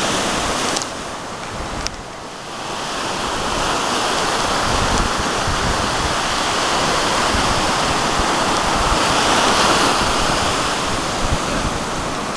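Ocean surf breaking and washing up the shore, a steady rushing that swells about two-thirds of the way through, with wind buffeting the microphone.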